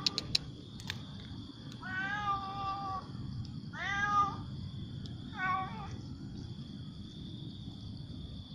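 A cat meowing three times, with gaps of about a second: a long call about two seconds in, a call that rises and falls around four seconds in, and a shorter one a moment later.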